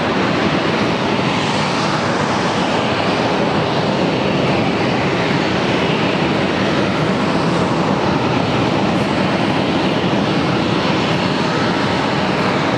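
Several Kawasaki T-4 jet trainers' twin turbofan engines running steadily and loudly, held before a formation takeoff.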